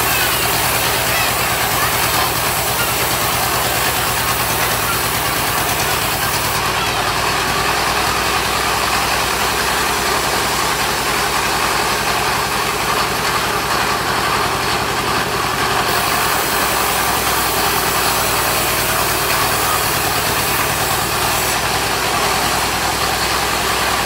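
Engine of a mobile band sawmill running steadily at a constant speed. Its low hum carries a dense, even mechanical hiss.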